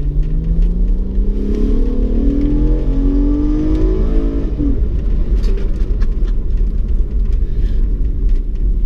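Honda Accord's 3.5-litre J35 V6 accelerating hard through a custom exhaust with dual chambered mufflers, its note rising steadily in pitch for the first four seconds or so. About four and a half seconds in the pitch drops suddenly, and the engine settles into a low, steady rumble.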